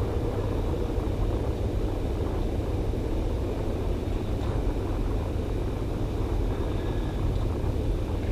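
Steady low rumble of background noise with a fainter hiss above it, even throughout, with no distinct knocks or voices standing out.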